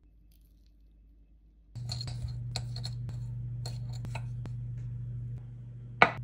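A metal utensil clinking and scraping against a glass measuring cup as butter is cut up in it, starting about two seconds in, over a steady low hum. One loud sharp knock near the end.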